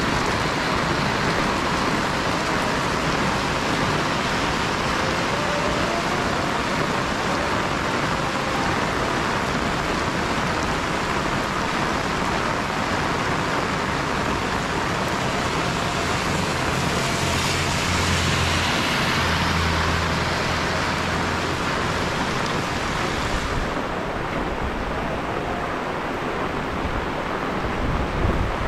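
Heavy rain falling steadily, a dense even hiss. A low hum comes in for a few seconds past the middle, and about two-thirds through the highest part of the hiss drops away.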